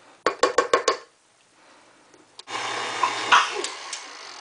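A spatula knocks quickly against a stand mixer's metal bowl and beater about six times, then after a short pause the KitchenAid Artisan stand mixer starts up about two and a half seconds in and runs with a steady hum, creaming butter and sugar, with one louder clack as it runs.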